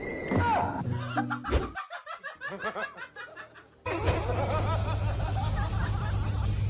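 A person snickering and laughing in quick repeated bursts. About four seconds in the sound changes abruptly to a steady noisy background with voices.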